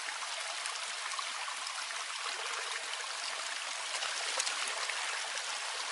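A small stream of water pouring through a gap in a mud dam and splashing into a shallow muddy pool: a steady rushing splash.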